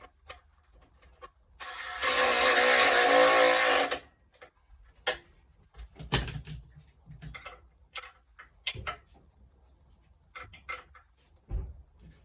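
Power tool running for about two seconds while the power steering pump is being fitted, then scattered clinks and knocks of tools and metal parts.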